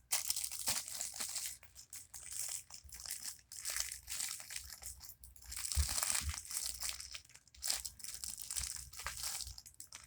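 Small plastic packing bag crinkling and rustling in irregular bursts as it is handled and a fidget toy is packed into it.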